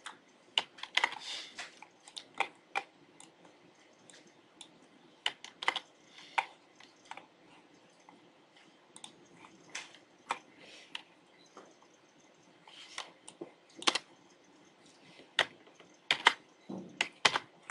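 Computer keyboard typing with clicks, irregular keystrokes coming singly and in short runs, with pauses between.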